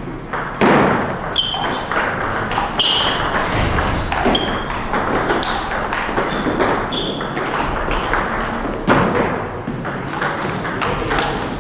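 Table tennis ball being hit by paddles and bouncing on the table: a series of sharp pings at irregular intervals.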